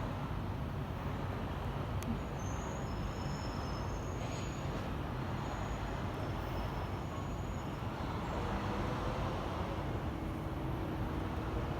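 Steady low rumble of a large vehicle running, with a short click about two seconds in and a faint low hum joining later.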